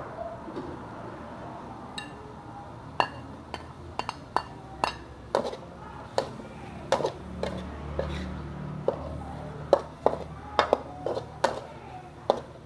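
Metal spatula scraping and knocking against a metal wok while stir-frying squid and cucumber: irregular sharp clanks with a short ring, starting about two seconds in and coming every half second or so.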